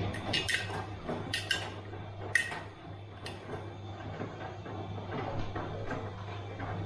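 Bosch washing machine running, with a steady low hum from the turning drum. Hard bits in the tumbling load clink and tap against the drum, several times in the first couple of seconds and more sparsely after.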